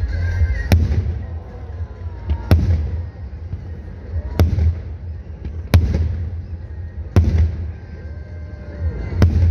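Aerial firework shells bursting: six sharp bangs, one every one and a half to two seconds, each trailing off in a rolling echo.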